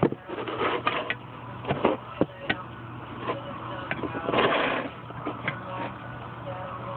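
Handling noise from a camera being moved and set down: scattered knocks and clicks, with a longer scraping rustle about four and a half seconds in. A steady low hum runs underneath.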